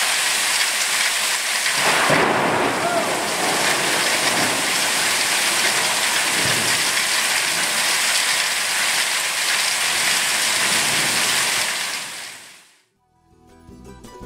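Heavy rain pouring steadily on a paved courtyard, with a rumble of thunder about two seconds in. The rain fades out near the end.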